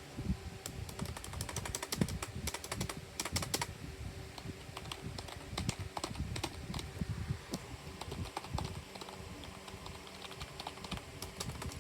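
Typing on a computer keyboard: irregular key clicks, fast and dense for the first few seconds, then sparser.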